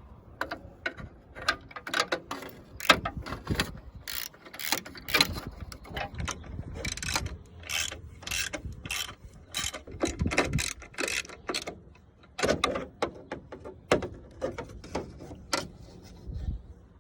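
Socket ratchet wrench clicking in runs of quick strokes, with short pauses, while a 13mm bolt is tightened.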